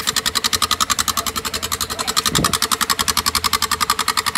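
Honda XRE 300 single-cylinder four-stroke engine idling with a washer fitted in its exhaust, which turns each firing into a sharp crack, an even rapid popping of about twelve a second.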